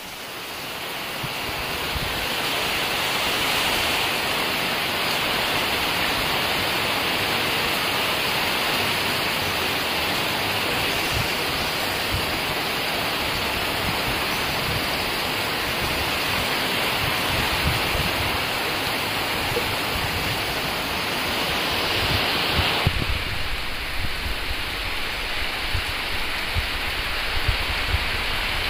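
Heavy rain pouring down in a steady, dense hiss, with strong wind gusting on the microphone as low rumbles. About three quarters of the way in the hiss thins and the wind rumble stands out more.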